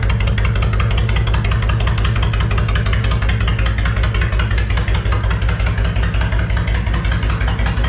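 2005 Honda VTX 1300S V-twin engine idling steadily with a quick, even pulse, running on fresh oil just after the oil change and new spark plugs.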